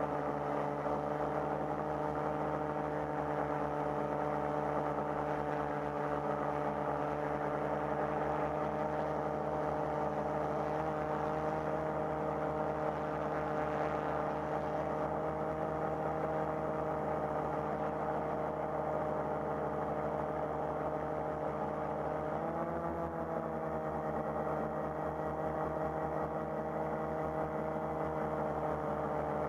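FPV quadcopter's brushless motors and propellers whining steadily in flight, a stack of even tones that bends briefly up in pitch about 22 seconds in.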